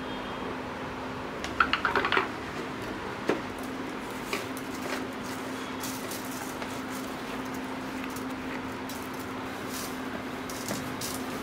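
Dishes and whole spices being handled: a short burst of clattering about a second and a half in and a single click a moment later, then light scattered ticks as garlic cloves and seeds are tipped into a plastic mixer-grinder jar. A steady low hum runs underneath.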